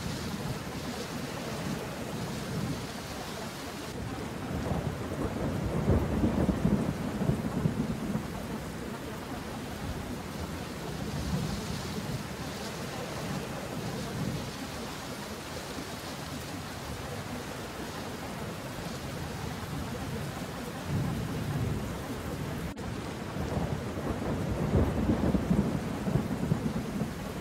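Steady rain with rolls of low thunder, the loudest swelling about five to eight seconds in and again near the end.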